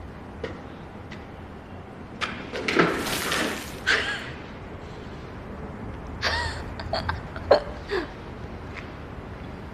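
Paint flung from a cup splashing against a wall several times, in separate splats, with a few short knocks between.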